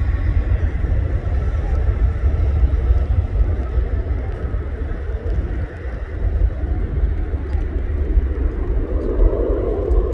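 Gulfstream G550 business jet's twin rear-mounted turbofans running at takeoff thrust as it rolls down the runway: a steady jet roar over a deep rumble.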